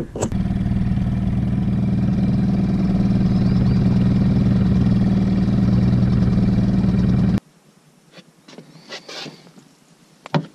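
Small boat motor running steadily at an even pitch, cutting off abruptly about seven seconds in; a few faint knocks follow.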